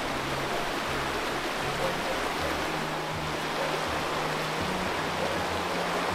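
Shallow mountain creek rushing over rocks in white riffles: a steady, even rush of water.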